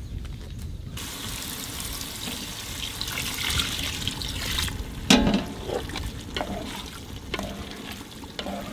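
Water poured from a plastic bottle into a large pot of chicken keema mince, splashing steadily for about four seconds. About five seconds in comes one loud knock, then a ladle stirring the wet mince with scattered scrapes and clicks.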